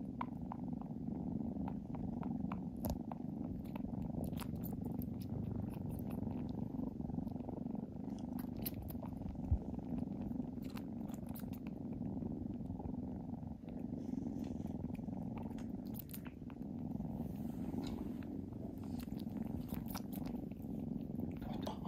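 Kitten purring steadily at close range, with light scattered clicks from a kitten suckling on bare skin.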